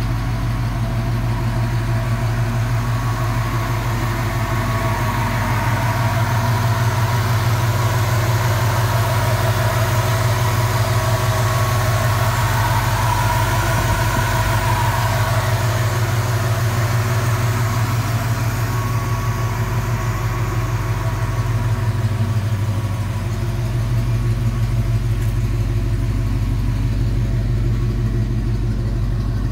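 1970 Jeep Wagoneer's Buick 350 Dauntless V8 idling steadily.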